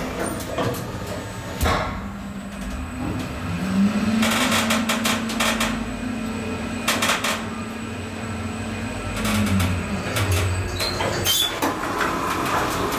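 Schindler EuroLift machine-room-less traction elevator on a run: the drive motor's hum rises in pitch as the car speeds up, holds steady for about six seconds, then drops as the car slows to a stop. There is a clunk about two seconds in and another near the end, as the car doors slide open.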